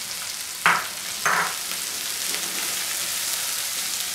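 Chopped onions and garlic sizzling in hot oil in a kadhai, with a steady high hiss, while a silicone spatula stirs them. Two short, louder scrapes of the spatula against the pan come about a second in, roughly half a second apart.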